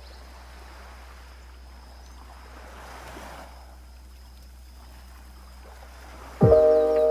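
Soft sea waves washing on a beach, with a gentle swell about midway through. Near the end, music with chime-like tones comes in suddenly and much louder.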